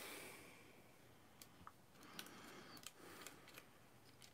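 A handful of faint, scattered clicks of plastic parts of a Transformers action figure being handled and fitted, over near-silent room tone.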